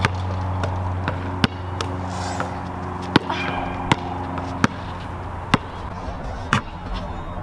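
Basketball dribbled on an outdoor asphalt court: about eight sharp bounces, irregularly spaced half a second to a second apart, over steady background music.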